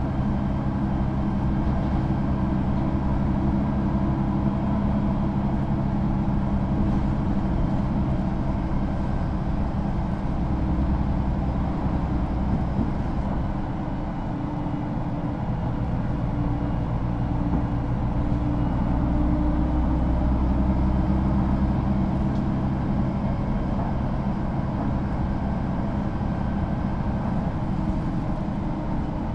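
Mercedes-Benz O530 G II Citaro articulated bus, with its diesel engine and Voith automatic gearbox, running steadily. The deep engine rumble grows stronger about halfway through and eases off again near the end.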